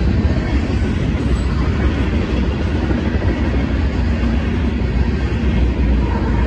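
Freight train cars rolling past at a grade crossing: a loud, steady rumble of steel wheels on the rails.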